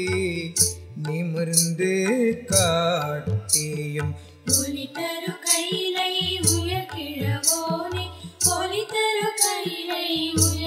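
Tamil devotional song in Carnatic style. A voice sings "nimirndhu" about two seconds in and "kaattiyum" about four seconds in, over melodic accompaniment and regularly spaced percussion strokes.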